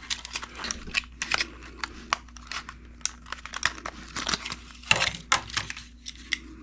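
Scattered small plastic clicks, taps and scrapes as the hard plastic body shell of a Kyosho Mini-Z RC car is handled and pried off its chassis.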